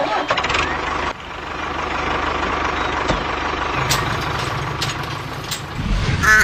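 Engine idling steadily with an even low pulsing, dipping briefly about a second in and swelling louder near the end.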